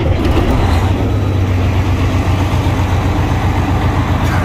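Semi truck's diesel engine idling steadily, having just been started.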